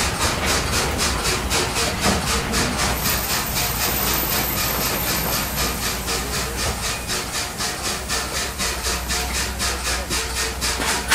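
LMS 4-6-2 Pacific steam locomotive 6233 'Duchess of Sutherland' rolling slowly past while drawing to a halt, its steam hissing with an even rhythmic beat from the running gear that slows from about four and a half to about three beats a second.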